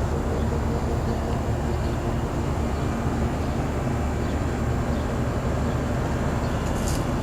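Trane 5-ton commercial straight-cool air-conditioner condensing units running: a steady compressor hum under the even whoosh of the condenser fans.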